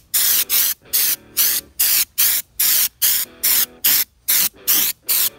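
Air-powered Raptor liner spray gun hissing in short, rapid bursts, about three a second, as the trigger is pulled and released, spraying textured bedliner with compressed air at about 65 PSI.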